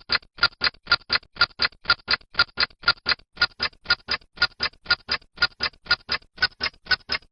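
Rapid, evenly spaced ticking like a clock, about four or five ticks a second: a countdown-timer sound effect marking thinking time for a quiz answer.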